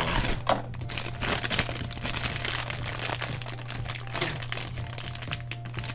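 A black foil blind bag crinkling and crackling in the fingers as it is drawn from its cardboard box and worked open.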